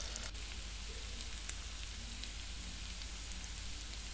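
Mutton pieces sizzling in hot oil with ginger-garlic paste in an open pressure cooker: a steady low hiss with scattered small pops.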